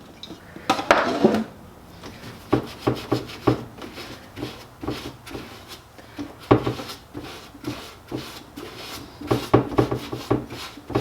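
Hands working over a workshop bench: an irregular run of short rubbing and scraping strokes with light knocks, from handling the ABS plastic part and its materials.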